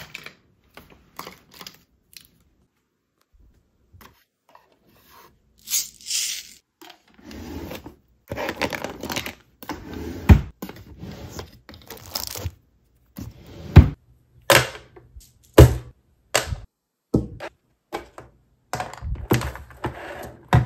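Hands handling pens and craft tools: rattling and scraping as pens are pulled from plastic holders and a drawer is opened, then a series of sharp knocks as the items are set down one by one on a hard tabletop.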